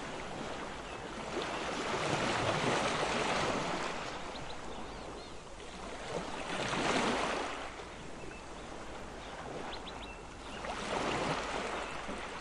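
Sea water washing in waves, swelling and fading about three times, every four seconds or so.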